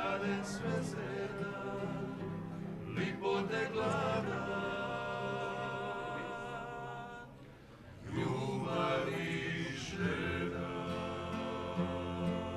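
Group of men singing together in close harmony, klapa style, with acoustic guitar accompaniment; long held notes, dropping away briefly about seven and a half seconds in before the voices come back in.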